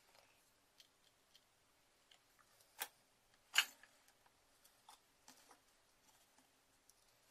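Light clicks and taps of hand tools being handled on a workbench, with two sharper clicks just under a second apart near the middle, as a soldering iron is picked up.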